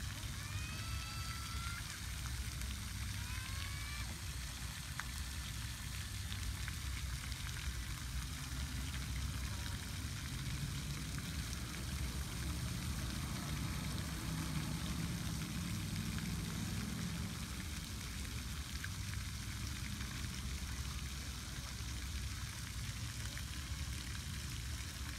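Steady splashing hiss of a pond fountain aerator's spray, over a low rumble, with a bird chirping several times in the first few seconds.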